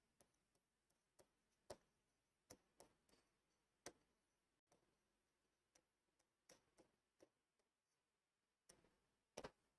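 Near silence broken by a dozen or so faint, short taps and clicks of a pen writing and underlining on a board.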